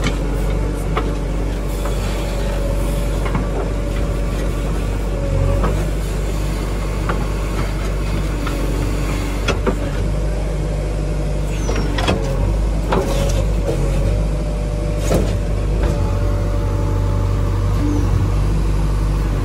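JCB 3DX backhoe loader's diesel engine running steadily under digging load, with a steady hydraulic whine that shifts a few times as the arm works. Short sharp knocks and clunks come every few seconds as the bucket bites into soil and stones.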